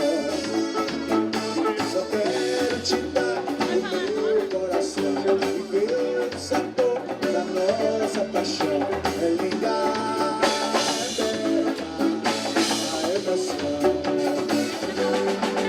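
Axé music with a drum kit and singing, a steady beat throughout.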